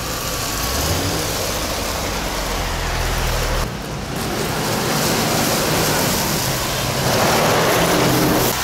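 Off-road cars driving past one after another on a gravel track, engines running and tyres on loose gravel, loudest near the end as one passes close by. The sound breaks off abruptly a little under four seconds in and carries on.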